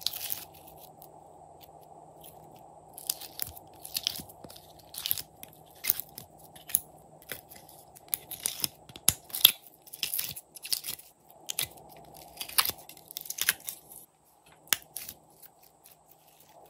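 Glossy slime being squeezed and stretched by hand, giving irregular sharp crackles and clicks, loudest in the middle stretch, over a faint steady hum.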